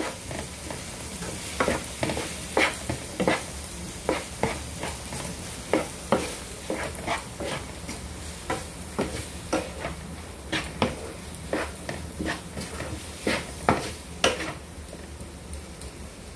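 A wooden spatula scraping and knocking against a frying pan as diced vegetables are stirred, over a steady sizzle of frying. The stirring stops near the end, leaving only the sizzle.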